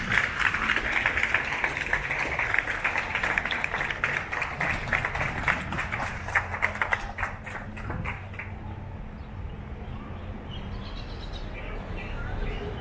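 An audience applauding. Dense clapping thins to scattered claps and dies away about seven or eight seconds in, leaving a faint murmur of voices.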